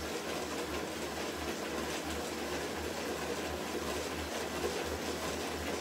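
Bicycle on an indoor trainer whirring steadily as it is pedalled hard through an interval, with a low pulsing hum underneath.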